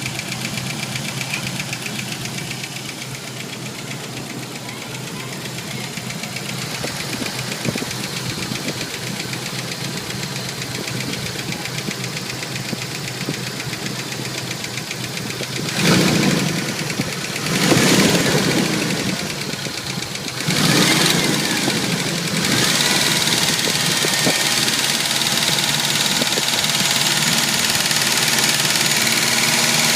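Jeep YJ's 2.5 L inline four-cylinder idling while still cold, with a rapid light ticking from the engine that the owner hears as a pinging or ticking rather than a knock. Two louder rushes come a little past halfway, after which the engine sound stays a little louder.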